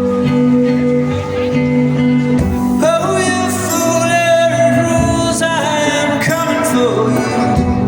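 Live indie-folk band playing over sustained chords, with a male voice singing a long held note from about three seconds in.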